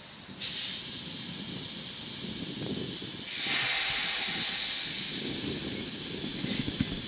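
Compressed air hissing from a ČD class 362 electric locomotive. It starts suddenly about half a second in and is loudest from about three to five seconds in, over a low rumble.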